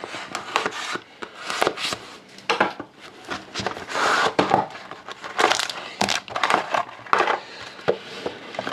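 Cellophane wrap on a trading card box crinkling and tearing as the box is opened, with irregular rustles and light taps of cardboard being handled.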